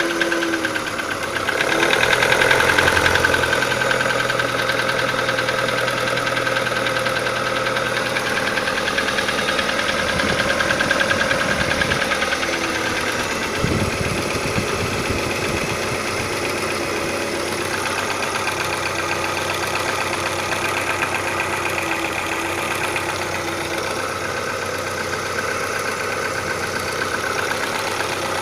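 Audi 80 B3's 1.8 litre four-cylinder petrol engine running with a rapid knock of unknown cause from inside the engine. It swells in loudness a couple of times.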